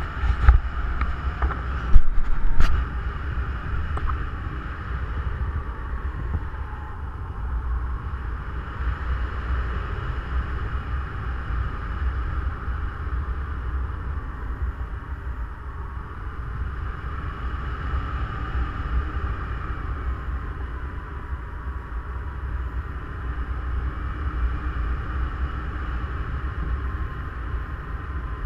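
Airflow buffeting a paraglider-mounted camera's microphone in flight: a steady low rumble with a hissing rush. A few sharp knocks come in the first three seconds.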